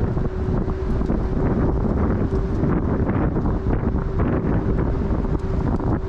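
Wind buffeting the microphone while riding an electric scooter, a dense rumble heaviest at the low end, with a faint steady hum underneath that comes and goes.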